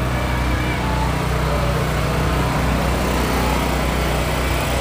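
An engine running steadily with a low, even drone.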